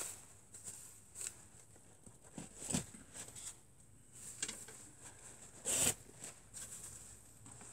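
Wooden arrows being pulled out of a plastic-wrapped foam archery target: a series of short scraping rasps, with the loudest about three-quarters of the way through.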